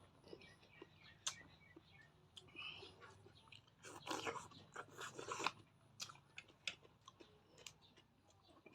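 A person chewing and biting food, with many short crunches and mouth clicks scattered through and a few louder bites about four to five seconds in.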